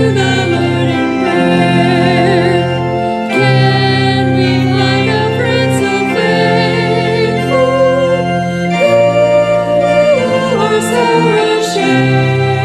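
Two women singing a hymn duet, their voices wavering with vibrato, over sustained organ chords.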